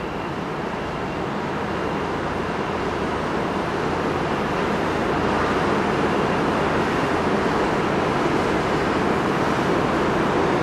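Steady, even rushing noise with no distinct events, growing slowly louder.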